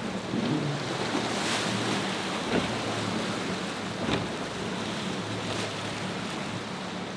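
Surf and choppy inlet water with wind on the microphone, a Yamaha outboard engine running steadily underneath, and a few sharp splashes as the hull slams through the waves.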